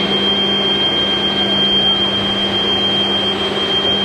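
A steady machine hum with a constant high-pitched whine running unchanged, under a faint murmur of voices.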